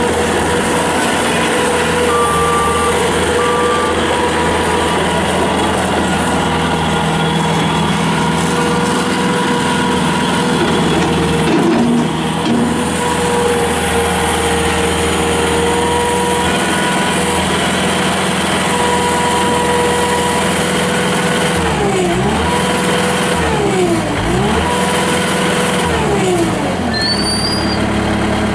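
Bobcat S300 skid steer's Kubota diesel engine running steadily at high speed. Near the end its revs drop and come back up three times in quick succession.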